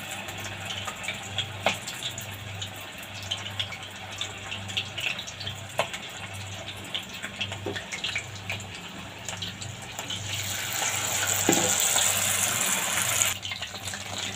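Battered chicken pieces deep-frying in hot oil in an iron kadhai: a steady crackling sizzle with many small pops. Near the end it swells into a louder, sharper hiss for about three seconds as a fresh battered piece goes into the oil.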